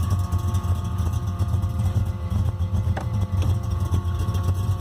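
Modified 1979 Holden VB Commodore engine idling with a lumpy, uneven rumble through a large exhaust system.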